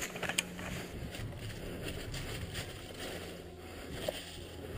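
Rustling and handling noise on a body-worn action camera as the wearer moves over dry leaves, with a few sharp clicks in the first half second.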